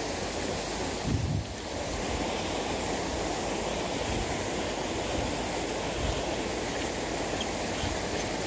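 A steady rushing noise with no speech, dipping briefly about a second and a half in.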